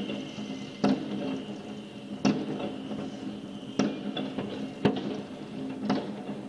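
Fireworks shells bursting, five sharp bangs roughly a second apart, over a steady high-pitched trill.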